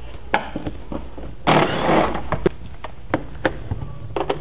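A hand wrench working a Torx-head plastic rivet out of a plastic rocker panel: scattered clicks and ticks, with a short scraping rasp about a second and a half in.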